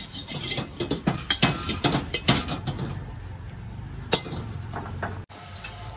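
A metal spatula scraping and clanking against a wok in a rapid, uneven run of knocks, thinning out after about three seconds.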